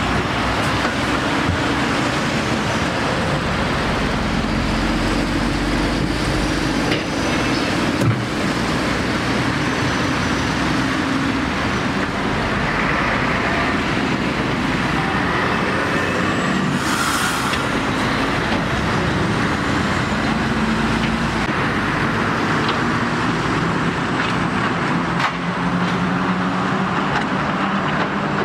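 Heavy diesel trucks passing one after another: engines running under load over steady road and tyre noise, with a brief hiss about midway. A Scania truck approaches near the end.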